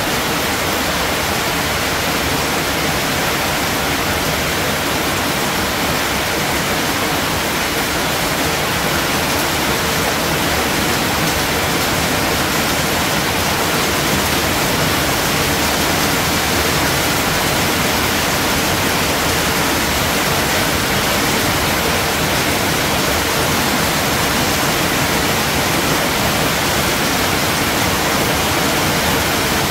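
Heavy rain falling steadily, a dense even hiss with no breaks.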